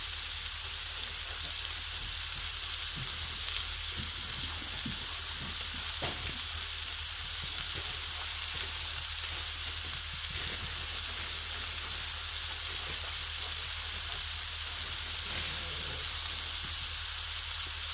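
Cheesesteak filling of thinly sliced ribeye, bell pepper and onion sizzling steadily on an electric griddle, with a few faint taps in the first several seconds.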